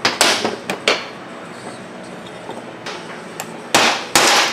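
Hammer taps driving a crankshaft seal into a Husqvarna 254 chainsaw crankcase half: a quick group of three strikes in the first second, then two more near the end.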